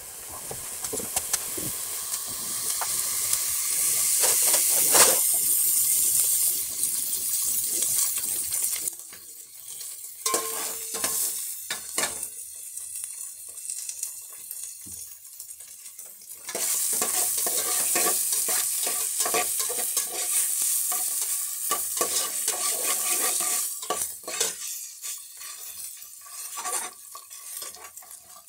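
Food sizzling as it fries in a hot pan, stirred with a metal utensil that clicks and scrapes against the pan. The sizzle is loud for the first several seconds and dies down in the middle, where the utensil clicks stand out. It flares up again for several seconds before easing off near the end.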